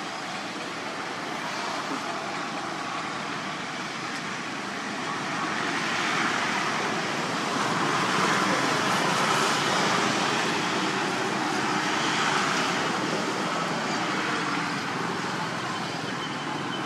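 Steady rushing background noise that swells for several seconds in the middle and eases off again.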